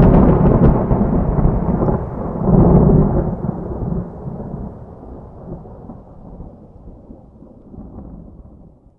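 Thunder rumbling, swelling once more about two and a half seconds in, then rolling away and fading out near the end.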